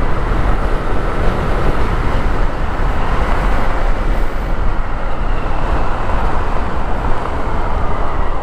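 Steady wind and road noise of a motorcycle being ridden along a wet road: wind rushing over the microphone, mixed with the engine and the tyres on wet asphalt.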